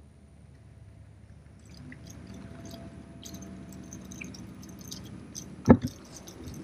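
Small Abu spinning reel being wound in quick irregular clicks as a small fish is reeled in and swung out on a float rod, with one loud knock near the end.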